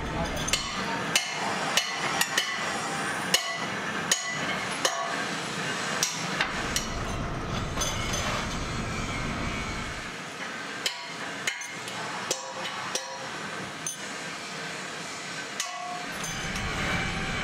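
Radial drill press at work on a cast iron pump casing: a steady machine hum under irregular sharp metallic clinks and knocks, which come thicker in the first half and more spaced out later.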